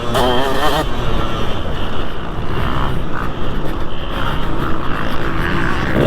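2003 KTM 200 SX single-cylinder two-stroke motocross engine under way on a lap, revving up and down with the throttle for about the first second, then pulling steadily.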